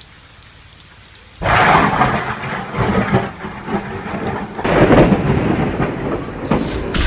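Thunderstorm: about a second and a half in, loud thunder breaks in suddenly over heavy rain. Another swell of thunder comes near the end.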